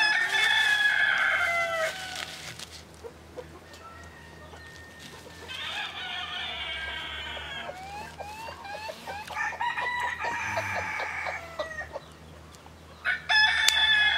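Roosters crowing four times: a loud crow at the start, two fainter crows in the middle and another loud crow near the end, each about two seconds long. Short rising chirps come between the middle crows.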